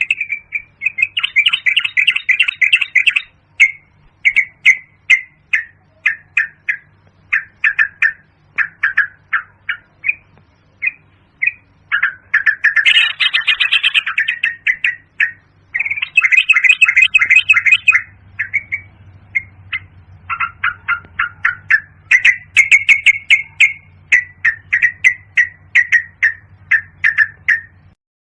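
Yellow-vented bulbul calling: quick runs of short bubbly chirps, broken by bursts of dense chattering every few seconds.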